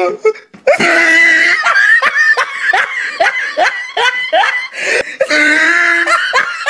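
A person laughing hard in quick repeated bursts, about three laughs a second, starting about a second in; a longer held laugh or cry comes near the end.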